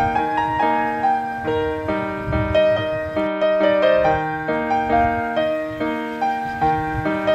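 Background piano music: a melody of evenly paced notes over a lower accompaniment.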